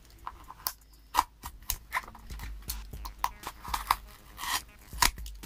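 Plastic packing tape being picked at and peeled off a cardboard parcel: irregular sharp crackles and clicks, with a short tearing sound about four and a half seconds in.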